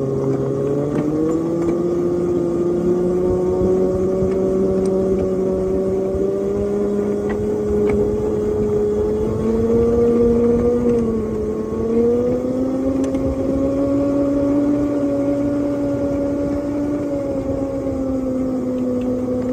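A 7½-inch gauge ridable locomotive running along the track, moving a flatcar, with a steady pitched drive note that rises about a second in, dips briefly around the middle and climbs again. Faint wheel clicks from the rails sound under it.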